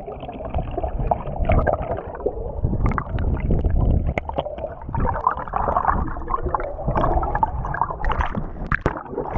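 Muffled gurgling and rushing of water picked up by a camera held underwater, with bubbles streaming past its housing and a few small clicks and knocks.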